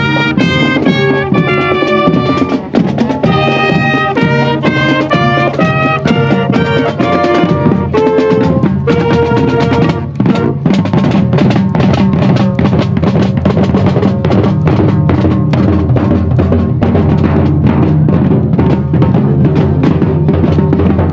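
Marching band playing: horns and woodwinds carry a tune over drums, then about halfway through the melody stops and the drumline carries on alone with a snare and bass drum cadence.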